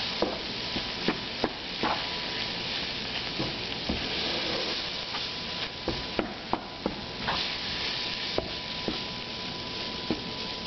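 Crumbled sausage and flour sizzling in a frying pan as they are stirred, with a steady hiss and irregular clicks and scrapes of the spoon against the pan. The flour is cooking in the leftover sausage fat into a roux for gravy.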